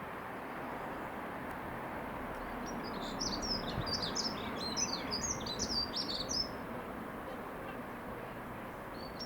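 A small songbird singing a rapid, jumbled run of high chirps for about three and a half seconds, starting a few seconds in, over steady outdoor background noise.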